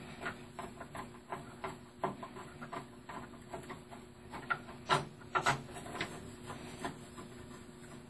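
Irregular small clicks and taps of plastic and metal parts and cables being handled inside an open desktop computer case, with two louder knocks about five seconds in.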